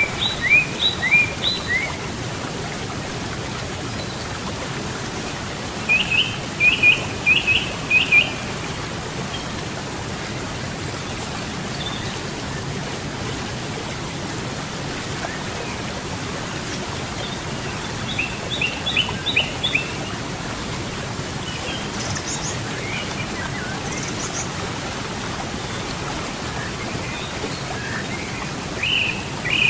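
Steady rush of flowing river water, with a songbird singing phrases of short, quick rising chirps in bursts every several seconds; the chirp phrases are the loudest sounds.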